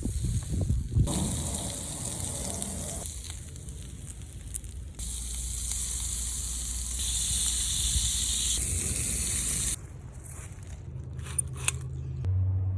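Shrimp skewers sizzling over a fire on a cast iron grill, in a few short stretches whose sizzle starts and stops abruptly.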